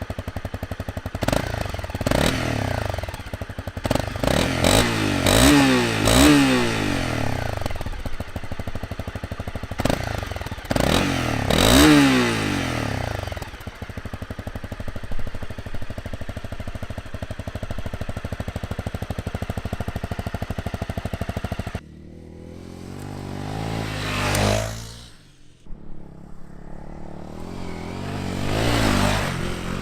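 Stock exhaust of a 2018 Honda CRF250L Rally's 250 cc single-cylinder four-stroke engine idling, with three quick throttle blips in the first dozen seconds. Later the bike is ridden past twice, the engine note swelling and then falling away each time. The stock exhaust is quiet.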